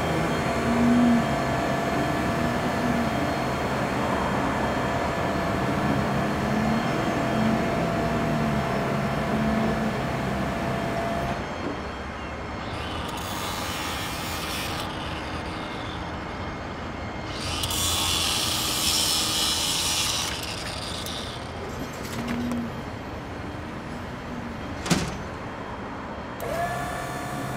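A bucket truck's engine and boom running amid street noise, with a steady whine and low hum at first. Two bursts of hissing come later, and there is one sharp knock near the end.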